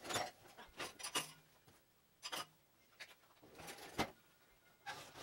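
A string of short, irregular rubbing, scraping and knocking sounds of someone tidying a kitchen, handling things and moving them on a counter. The loudest come at the start and about four seconds in.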